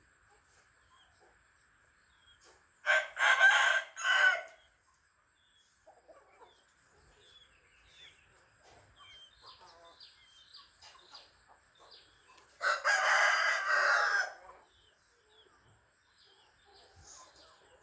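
Rooster crowing twice, one crow about 3 seconds in and another about 13 seconds in, with faint short chirps and clucks between the crows.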